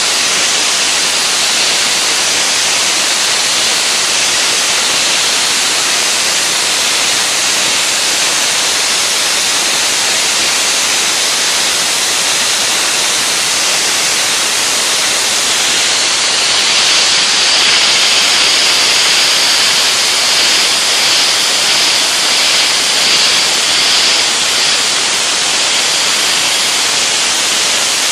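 Dry ice blaster spraying compressed air and dry ice pellets through its nozzle: a loud, steady hiss that turns brighter and a little louder about halfway through for several seconds, as the blast strips grime from a lacquered metal machine part.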